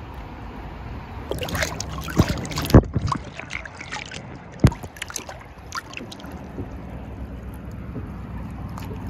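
Choppy river water splashing and slapping against a kayak's hull as it runs through a riffle, over a steady rush of moving water. Several sharp slaps come in quick succession a second or two in, and one more about halfway through.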